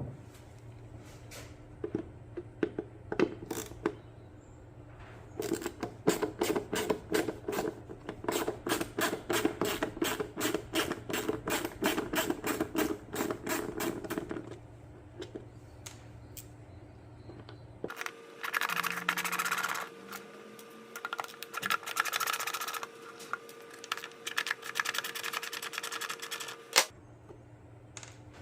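Hand tools working screws out of a headlight ballast: a long run of even, rapid clicks, about five a second, then a steady hissing whir with a few scattered clicks.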